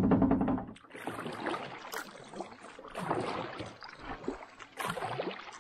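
Canoe paddle strokes pulling through the water, splashing and dripping at about one stroke a second. A short stretch of background music ends in the first second.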